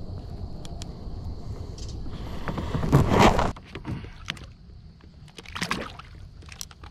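Water sloshing and splashing around a fishing kayak, over a low wind rumble on the microphone. The loudest splash comes about two to three seconds in and lasts about a second, followed by a few light knocks and a smaller splash.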